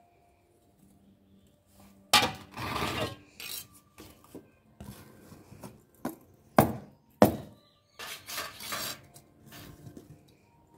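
Iron fire tongs scraping through ash and knocking against a mud stove and firewood, with short scrapes and sharp metal clinks: a strong knock about two seconds in and two more a little after the middle.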